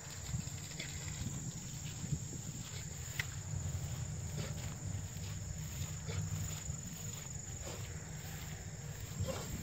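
Steady high-pitched drone of field insects over a low rumble, with the rustle of footsteps through tall grass and a few faint clicks.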